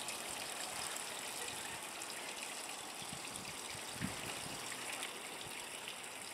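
Steady, even hiss of outdoor background noise, with a soft low thump about four seconds in.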